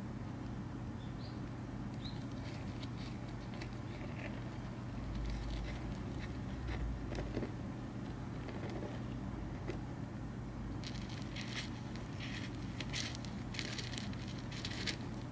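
Soft scratching and crackling of loose soil as a common rain frog digs itself in, in irregular short bursts that come thick and fast near the end, over a steady low hum.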